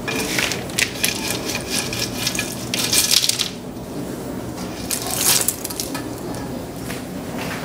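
Seasoned Chex Mix pieces (cereal squares, pretzels, crackers) pouring and rattling out of a stainless steel stock pot onto metal sheet pans. There are louder surges of pouring about 3 s and about 5 s in.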